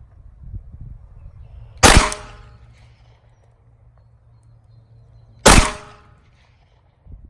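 Glock 43X 9mm pistol firing two single shots about three and a half seconds apart, each a sharp crack with a short ringing tail.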